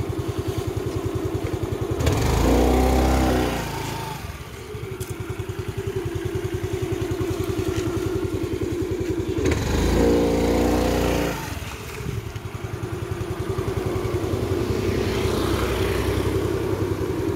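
Motor scooter engine idling with a steady, even beat. It surges louder twice, about two seconds in and again about ten seconds in.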